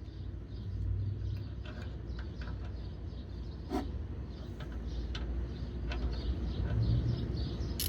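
Hand tools clinking now and then against metal, a few irregular sharp ticks, during work on a truck's exhaust oxygen sensors, over a steady low outdoor rumble.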